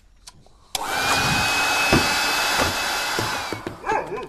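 Handheld electric hair dryer switched on about a second in, blowing steadily with a high whine, then switched off near the end as the whine drops away.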